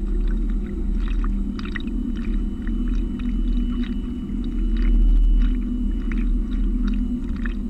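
Water splashing and gurgling along a moving boat's hull in small irregular crackles, over a steady low rumble.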